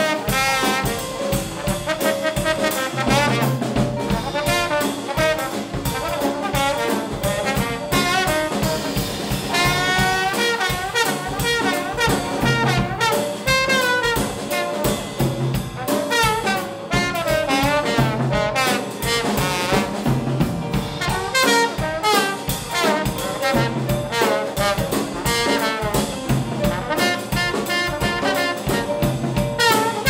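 Live jazz band playing a New Orleans rhythm-and-blues tune without vocals: a trombone plays the melody with wavering, bending notes over piano and a drum kit with cymbals.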